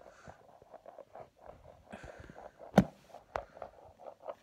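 Tippe top spinning on a hard surface, giving a faint, irregular rattle of small ticks, with one sharp click just under three seconds in and a lighter one shortly after.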